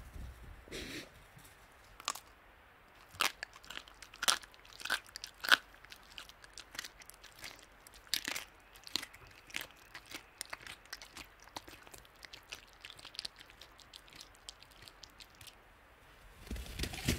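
Tasmanian devil's jaws crunching on bone while feeding: irregular sharp cracks and crunches, several a second, loudest around five seconds in. A lower, louder sound begins just before the end.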